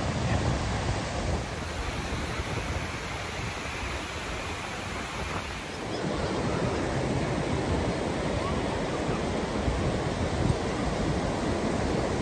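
Ocean surf breaking on a sandy beach, a steady rush of waves with wind rumbling on the microphone. It eases off for a few seconds, then comes back fuller about six seconds in.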